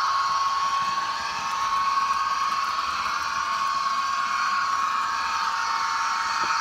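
Märklin HO model class 218 diesel locomotive and freight train running along metal track, giving a steady high whine over a continuous rolling hiss of wheels on rails.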